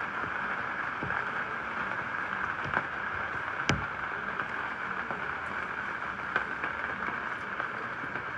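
Steady hiss-like noise with scattered faint ticks, and one sharp click a little past halfway through.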